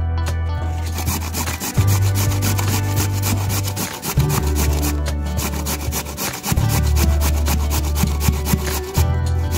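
Raw potato grated on a stainless steel box grater: quick, rhythmic rasping strokes that start about a second in, over background music with sustained bass notes.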